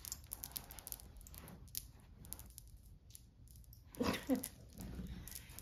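Faint, scattered light clicks of hair beads knocking together on beaded locs as the head turns. About four seconds in there is a short breathy vocal sound.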